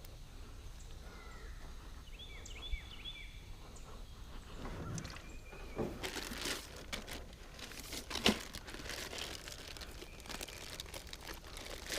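Irregular crunching and crinkling handling sounds, with a sharp louder click a little after eight seconds. A few short high chirps come a couple of seconds in.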